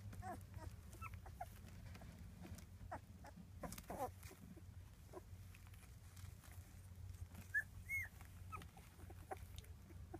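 Seventeen-day-old rough collie puppies making faint, scattered little squeaks and whimpers, with two louder short squeals about three quarters of the way through.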